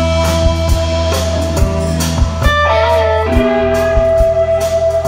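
Live electric blues-rock band playing an instrumental passage: a long sustained lead note, broken off briefly about halfway, over drum kit and bass.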